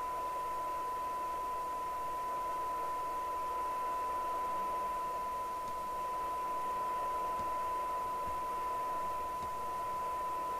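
A CB radio's receiver, set to AM and tuned to a signal generator's test signal, sounding a steady, unchanging test tone over hiss from its speaker.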